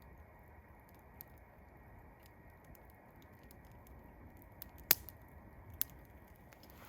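Small wood campfire crackling faintly over a low steady hiss, with two sharp pops about five seconds in and again a second later.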